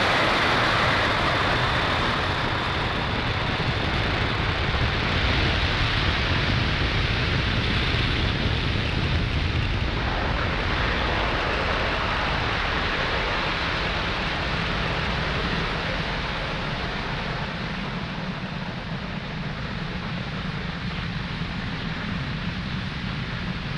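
Falcon 9 first stage's nine Merlin 1D engines firing during ascent: a steady rushing rumble that slowly grows fainter.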